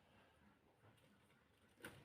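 Near silence: faint room tone, with one short click near the end.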